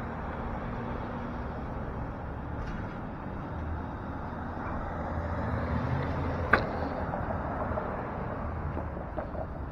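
City street traffic: a van and cars driving past close by, a low steady rumble that swells for a few seconds in the middle. A single sharp click about two-thirds of the way through is the loudest sound.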